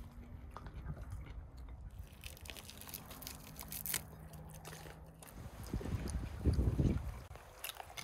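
A person biting and chewing roast guinea fowl, with crisp crackly bites about three to four seconds in and louder chewing near the end.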